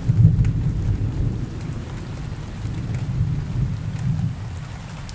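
Low rumbling transition sound effect, loudest at the start and slowly dying away.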